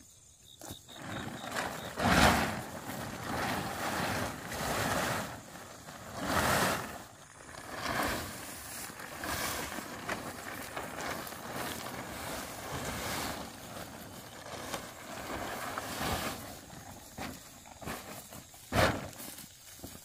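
A plastic tarpaulin rustling and crackling as it is shaken out and dragged over a stack of harvested rice straw, in a string of noisy swishes. The loudest come about two seconds in and as a sharp swish near the end.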